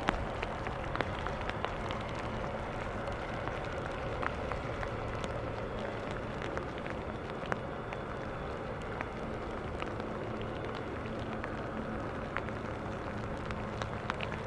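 Steady airport rumble in the rain, with a faint hum and scattered ticks of raindrops.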